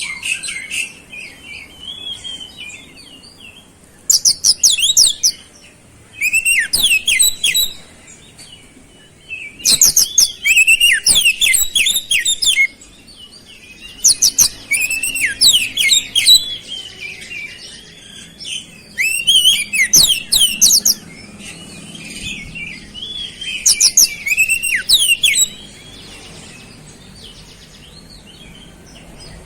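Oriental magpie-robin singing in repeated loud bursts of rapid, high, sweeping notes, with quieter warbled phrases between them. Its song is loaded with mimicked flowerpecker calls.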